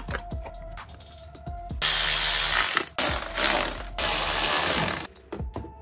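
Ratchet wrench clicking in three quick runs of about a second each, starting about two seconds in, as fairing fasteners are driven home. Background music plays underneath.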